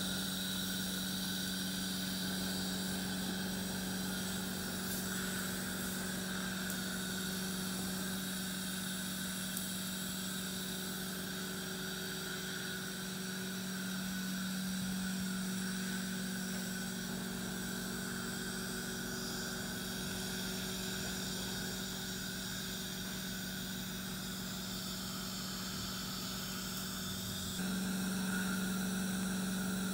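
Dental suction running steadily during gum surgery: a constant low motor hum with a hiss, getting a little louder near the end.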